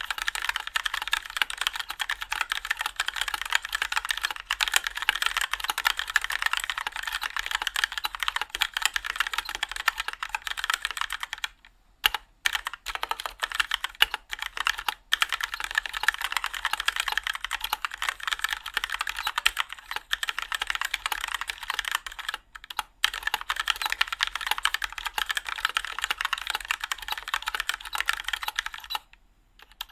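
Fast, continuous typing on a Keychron K4 mechanical keyboard fitted with Keychron yellow linear switches (no click or tactile bump) and thin ABS keycaps: a dense clatter of keystrokes. There is a short pause about twelve seconds in, and the typing stops about a second before the end.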